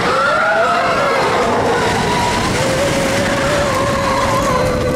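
Roller coaster riders screaming, several long wavering voices overlapping, over the steady rush and rumble of the Expedition Everest coaster train running along its track.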